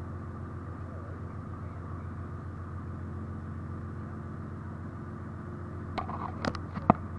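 Speedboat engine running steadily at low revs, a low droning hum. A few sharp knocks come near the end.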